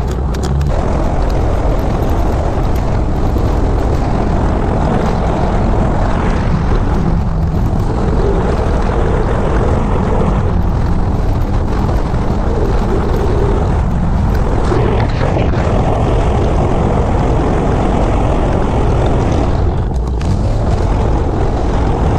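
Motor scooter running at cruising speed with steady wind rush over a camera mounted on the moving scooter.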